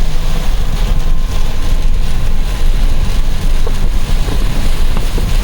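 Loud, steady low rumble of wind buffeting the microphone, mixed with the noise of a car driving through a storm.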